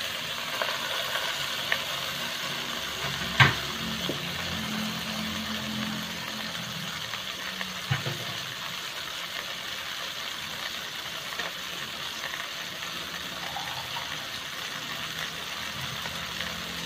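Fried fish sizzling in a hot stainless-steel pot on a bed of sautéed aromatics: a steady hiss, broken by two sharp knocks against the pot, about three and a half seconds in and again near eight seconds.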